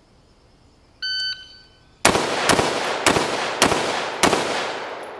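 A shot timer's start beep, then a carbine-length AR-style rifle firing five quick shots, about half a second apart, each echoing across the range.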